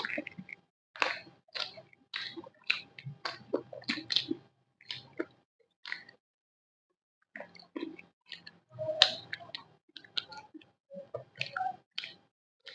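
A person chewing and biting fried snacks close to the microphone: a run of short crunching and smacking mouth sounds that stops for about a second and a half near the middle, then goes on.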